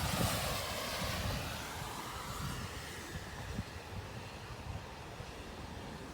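A vehicle passing on the expressway bridge overhead: a rushing hiss whose pitch sweeps down as it goes by, fading over the first few seconds. Wind buffets the microphone throughout.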